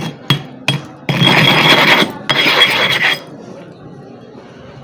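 Three sharp knocks, then two long rasping strokes of a sharpening stone rubbed hard across an abrasive surface while it is being flattened.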